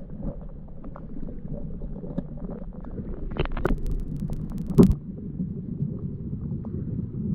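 Muffled, low rush of flowing water heard with the microphone underwater, with scattered small clicks, a cluster of sharper clicks about three and a half seconds in and a loud thump near five seconds.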